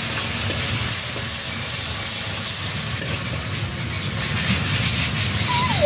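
Masala paste of ginger, garlic, chilli and ground spices sizzling steadily in hot oil in a pan as it is stirred and fried down, with a light click about three seconds in.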